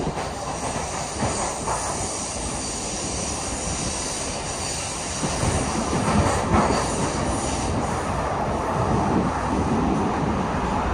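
Steady running noise of an MBTA Blue Line subway car heard from inside the car: wheels on rail and the hum of the moving train, getting a little louder from about halfway through.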